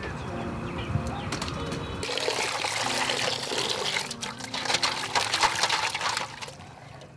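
About two seconds in, water starts splashing and sloshing as a hand swishes and rubs roselle calyces in water in a woven bamboo basket, washing them. The splashing fades near the end.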